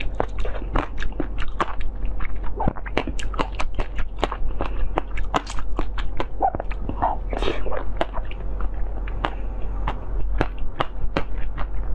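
Close-miked eating: biting into and chewing a yellow jelly ball studded with seeds, making a steady run of sharp, crackly clicks a few times a second, with a longer wet squelch about seven seconds in.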